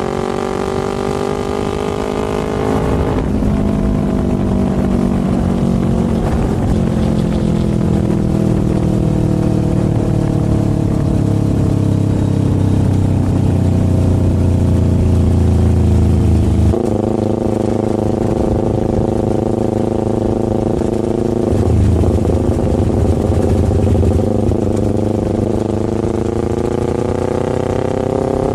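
Motorcycle engine under way on the road. The revs climb and drop abruptly on a gear change about three seconds in, then sag slowly for over ten seconds. They jump up again after about seventeen seconds and climb once more near the end.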